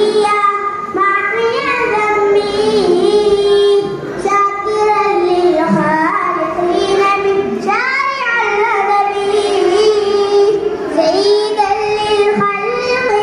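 A young boy singing an Arabic song solo, holding long drawn-out notes with wavering, ornamented pitch bends.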